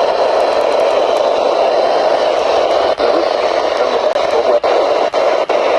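Weather radio receiver hissing loud, steady static while tuned to a weak NOAA Weather Radio station, with faint broken snatches of the broadcast voice showing through the hiss.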